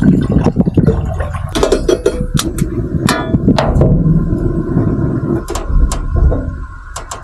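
Water poured from a plastic bottle into an aluminium saucepan, then a run of sharp metal clinks and knocks as the lid is put on the pan and it is handled.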